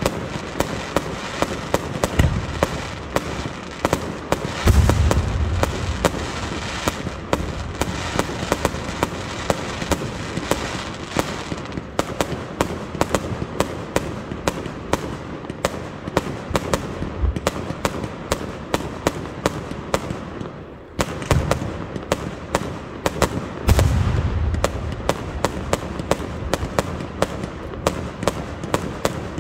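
Aerial fireworks display: a dense, continuous run of crackling pops and bangs from bursting shells. Heavier deep booms come about 2 and 5 seconds in, and again about 21 and 24 seconds in.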